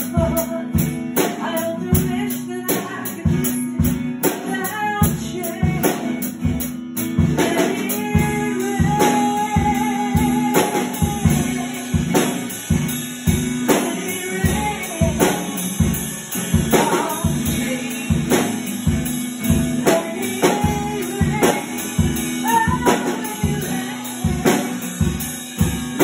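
A Pearl drum kit played along to a recorded Christian worship song with singing, the kit keeping a steady beat of kick drum, snare and cymbals under the music.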